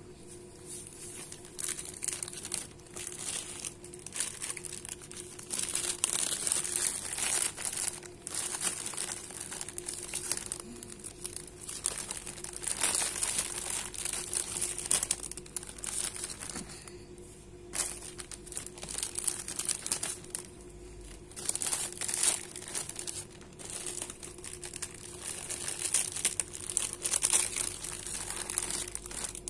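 Thin clear plastic bags crinkling in irregular stop-start bursts as food items are packed into them by hand.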